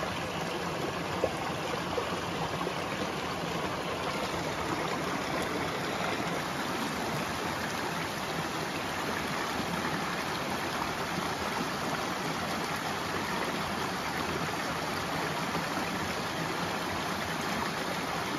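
Small mountain stream running over rocks and down a low cascade, a steady rush of water, with one brief knock about a second in.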